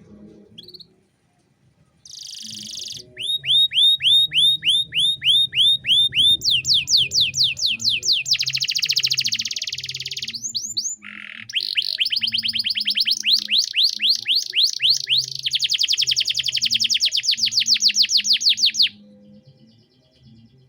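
Male domestic canary singing: runs of quick downward-sweeping whistled notes, about four a second, that speed up into fast buzzing rolls, broken by a couple of harsh notes. It starts about two seconds in and stops shortly before the end.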